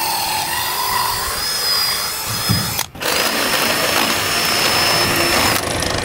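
DeWalt cordless drill boring a hole into a wooden barn base. The motor stops briefly about three seconds in, runs again with a steady high whine, and stops shortly before the end.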